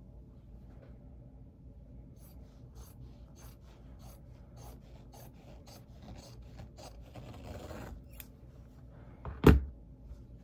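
Scissors snipping through Japanese fabric in a run of short cuts, with the cloth rustling as it is handled. Near the end there is a single loud thump against the table.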